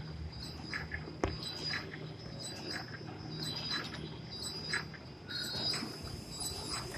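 Medical-glove flow-wrap packing machine running: a steady motor hum with a short, high-pitched squeak repeating about once a second as it cycles, and one sharp click just over a second in.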